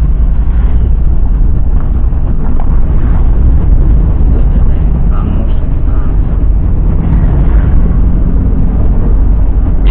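Car driving, heard from inside the cabin through the dashcam's microphone: a steady, loud low rumble of engine and road noise.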